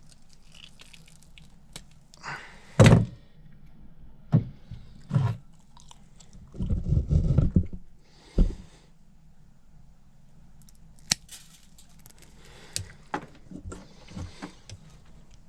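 Tools and small metal parts being handled: a loud thump about three seconds in, a few knocks, a rattling stretch of about a second, then scattered light clicks. This is the work of fitting insulated crimp terminals to replacement wires.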